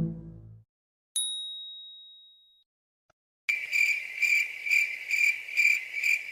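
Comedy sound effects: a single bright bell ding that rings out and fades, then a high, fast-pulsing ringing, about two to three pulses a second, that keeps on to the end.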